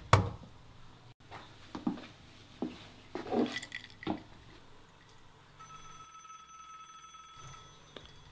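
A few faint clicks and knocks, then, a little past halfway, a steady electronic ringing tone with several high pitches held level, which cuts off suddenly at the end.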